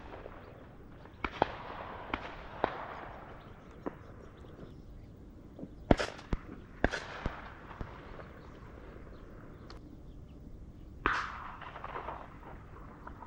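Distant shotgun shots from hunters opening turtle dove season: about a dozen scattered reports, some in quick pairs, each trailing off in a rolling echo. The loudest come around the middle and near the end.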